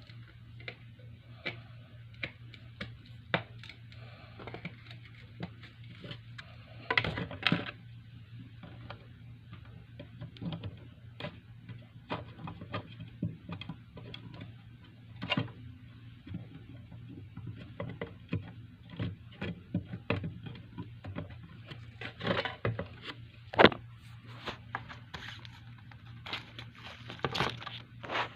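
Irregular clicks, taps and rustles of hands handling a boxed figure and its plastic and cardboard packaging, with a couple of louder knocks, over a steady low hum.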